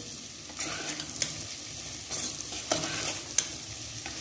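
Metal spatula stirring rice and peas frying in ghee in a stainless steel pot: a light sizzle under it, with the spatula scraping and clacking against the pot about once a second.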